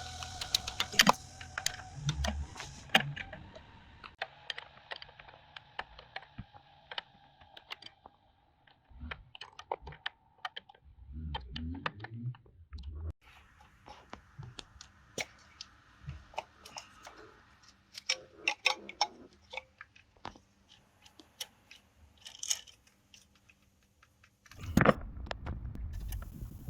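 Scattered sharp clicks and light clinks of hand tools and engine parts being handled during engine-removal work, irregular and with short pauses. Near the end a louder, denser clattering and rustling stretch begins.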